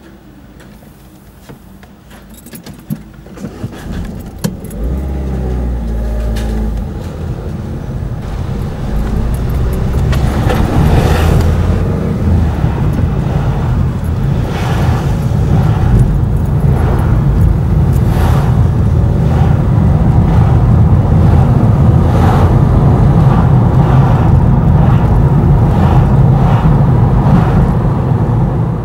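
A car pulling away and driving, heard from inside the cabin: a low engine and road rumble that builds over the first ten seconds and then runs on loud and steady, with scattered knocks and rattles.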